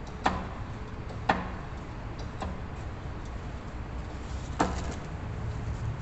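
Steady low hum with a few sharp clicks at uneven intervals.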